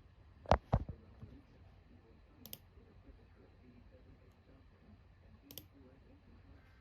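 Two sharp clicks about half a second in, a quarter second apart, then two faint ticks later, over a low steady hiss.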